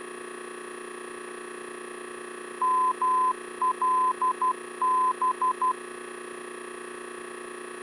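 VOR station identifier in Morse code, a beeping tone keyed as M-L-B (dash dash, dot dash dot dot, dash dot dot dot) for the Melbourne VOR, heard over the intercom. It confirms that the navigation radio is tuned to the right station. Under it runs the steady hum of the idling engine in the headset audio.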